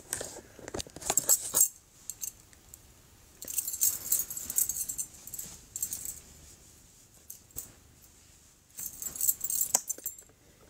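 Small metal objects jingling and rustling in three bursts, about a second in, in the middle, and near the end, with quieter stretches between.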